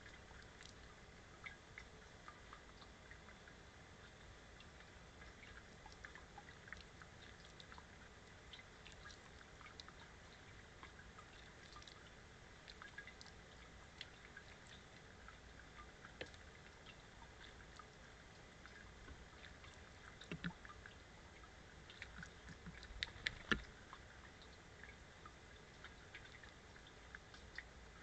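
American robin bathing in a shallow bird bath: faint, scattered splashes and drips of water, with a flurry of louder splashes late on.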